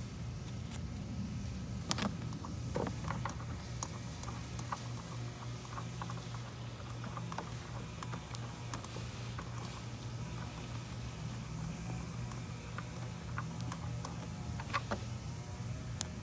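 Scattered light clicks and knocks of a plastic fastener and trunk trim being handled, over a steady low hum.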